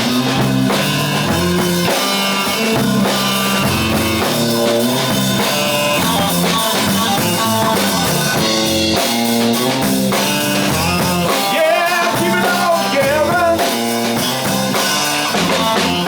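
Live rock band playing an instrumental stretch near the end of a song, with a drum kit and guitars.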